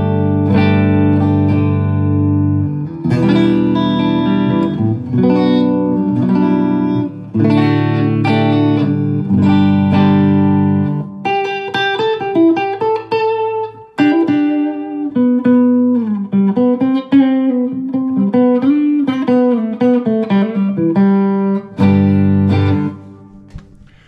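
Semi-hollow electric guitar played through a Line 6 Helix modeler into Mackie Thump Go battery-powered speakers. It plays full sustained chords with a heavy low end for about the first eleven seconds, then a run of single-note lines and short chord stabs that fades out near the end.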